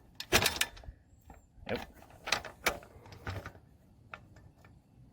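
Irregular small metal clicks and rattles from a bicycle saddle's rail clamp and its bolt being worked by hand while the bolt's thread is coaxed into starting. The loudest cluster of clicks comes about half a second in.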